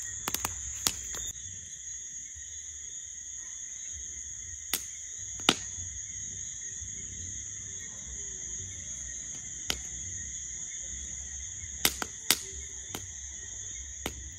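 Steady high-pitched chorus of night insects, with about a dozen sharp pops and crackles from a wood campfire scattered through it.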